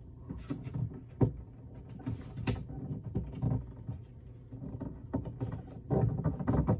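Sheet of origami paper being folded and creased by hand: irregular crinkling and rustling with short clicks as the fold is pressed flat, the sharpest click about a second in.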